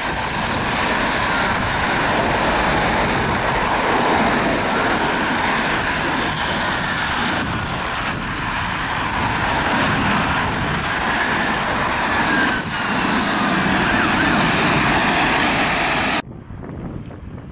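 Two-tone siren horns of a Scania P310 aerial rescue pump fire engine, faint under a loud, steady wash of traffic and tyres on a wet road. Near the end the sound cuts off abruptly to much quieter wind noise.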